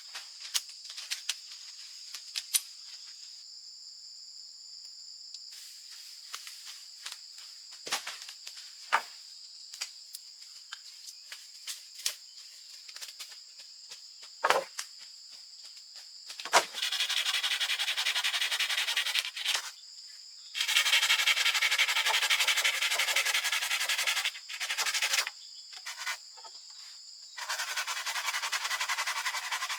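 Insects drone steadily at a high pitch, with scattered clicks and taps. From about seventeen seconds in, four loud stretches of rasping noise, each a few seconds long, start and stop abruptly: rubbing or scraping work.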